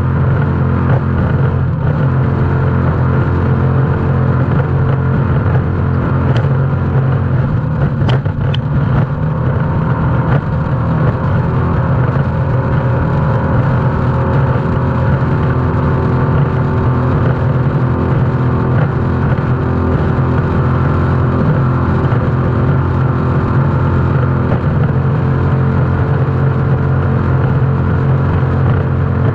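Offshore racing powerboat's engines running hard at speed, a steady loud drone heard from inside the boat's enclosed cockpit canopy, with a couple of faint clicks about six and eight seconds in.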